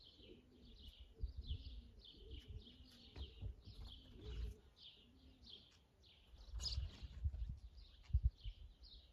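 Small birds chirping, a steady run of short chirps about two or three a second, over low, uneven rumbling.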